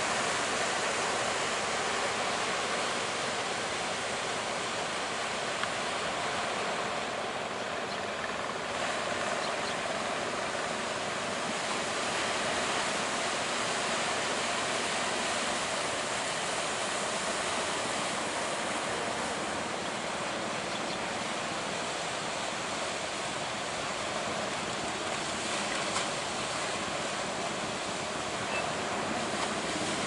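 Steady rushing of surf as waves break and wash in, with no engine or voice standing out.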